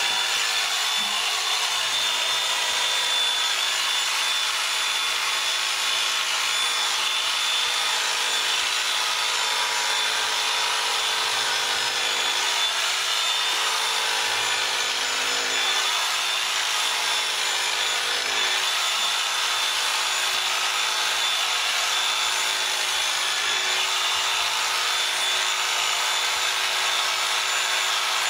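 Electric sheep-shearing handpiece running steadily, its reciprocating cutter buzzing over the comb with a constant high whine.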